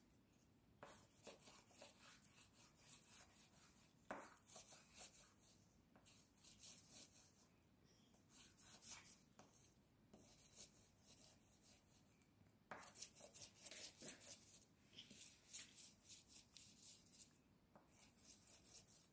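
Faint rubbing of a frozen coloured ice cube on a wooden stick, scrubbed back and forth across paper. It comes in several bouts of quick, even strokes with short pauses between.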